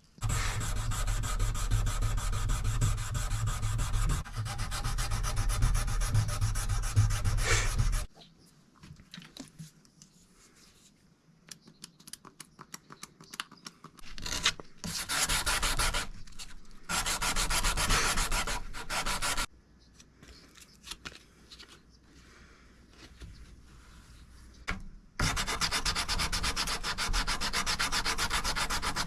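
A forged Damascus steel knife blade being sanded with sandpaper: a dense scraping in several bursts of a few seconds each, separated by quieter gaps with light clicks. A steady low hum runs under the first and longest burst.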